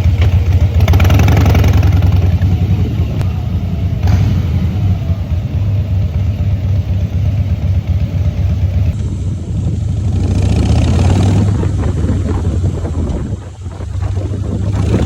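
Harley-Davidson Breakout's V-twin engine running while riding, a deep pulsing exhaust note that swells louder about ten seconds in and drops off briefly near the end.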